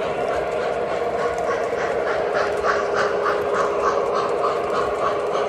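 Several Lionel O-gauge model trains running on a layout: a steady hum of motors and wheels on the rails, with a rhythmic pulsing at about five beats a second through the middle.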